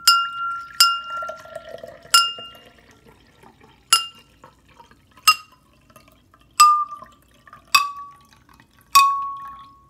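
A tall drinking glass is struck with a metal spoon about eight times, each tap ringing out clearly, while water is poured into it. The ring drops steadily in pitch as the glass fills and less air is left inside to vibrate. Water splashes into the glass early on.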